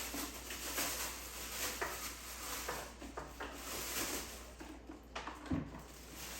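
Plastic wrapping crinkling and rustling as it is pulled off a food processor's motor base, with many small crackles, easing off near the end, where there is a single knock as the base is handled.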